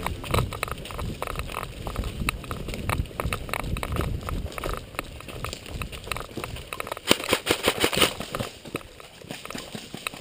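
Footsteps moving quickly over the ground, with irregular crunching and crackling underfoot, and a denser run of sharper clicks about seven seconds in.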